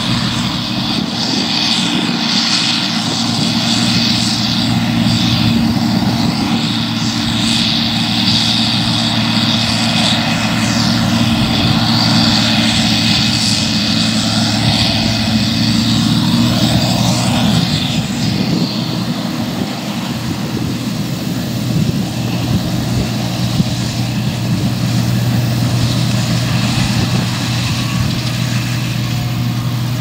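Case IH Axial-Flow 5088 combine harvester working under load while harvesting barley: a steady drone of its engine and threshing machinery. A high hiss in the sound eases off about two-thirds of the way through.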